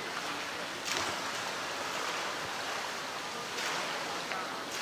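Water sloshing and splashing in a pool as a polar bear moves through it and dips its head to feed, with a steady watery hiss and a few brief splashes.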